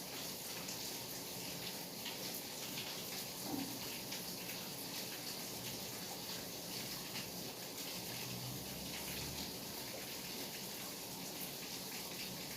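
Steady night rain, a dense patter of raindrops with many small drop ticks over a constant hiss.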